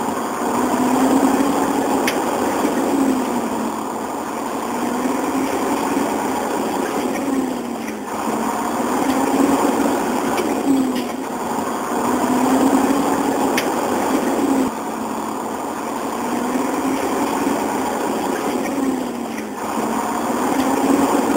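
Engine running, its pitch rising and falling in a repeating pattern every couple of seconds, with a few abrupt breaks.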